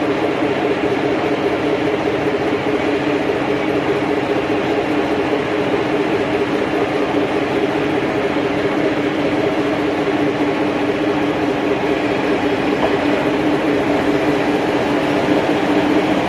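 Kyoto Tango Railway diesel railcars: engines idling at the platform as a steady drone with several held tones, while another diesel railcar rolls slowly in alongside. The sound grows a little louder near the end as it arrives.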